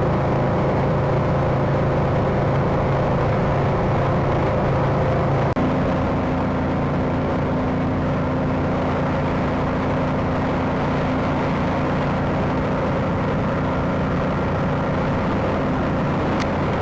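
A vehicle engine running steadily, its note changing once about five and a half seconds in.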